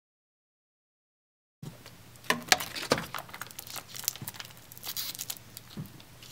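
Digital silence for about a second and a half. Then a foil juice pouch and its straw crinkle and crackle as they are handled, with a few sharper crackles soon after it starts.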